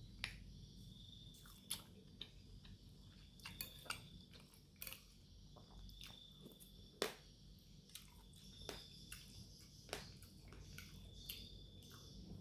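Faint close-up chewing of chicken noodles and meatballs: soft wet mouth sounds with scattered smacks and clicks, the loudest about seven seconds in.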